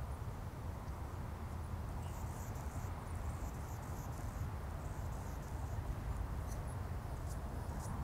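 Marsh-side outdoor ambience: a steady low rumble under a soft hiss, with faint high-pitched chirps around two to three seconds in and a few short high ticks near the end.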